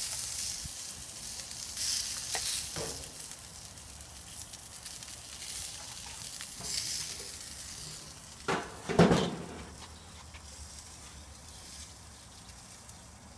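A sauce-basted whole chicken sizzling on a hot gas grill, with spitting and crackling as sauce drips onto the grates and burners, set high enough that the grill smokes heavily. The sizzle swells twice and then fades toward the end, with two sharp knocks about eight and a half and nine seconds in.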